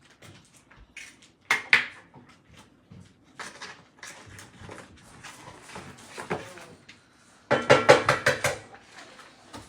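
Utensils knocking and clinking against a bowl while eggs are prepared for cheese scrambled eggs: scattered taps and clicks, then about a second of rapid, loud clinking near the end.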